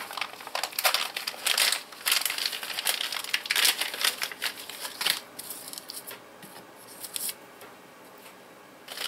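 Clear plastic parts bag crinkling and rustling as it is handled and opened by hand: a string of irregular crackles, busiest in the first five seconds, then thinning to occasional rustles.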